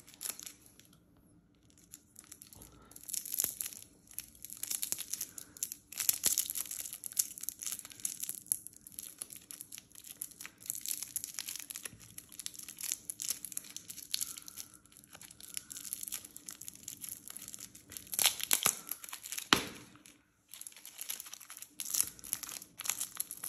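Crinkling and tearing of a lollipop's shiny wrapper as it is twisted and peeled off by hand, in irregular crackly bursts, the loudest just before a brief pause near the end.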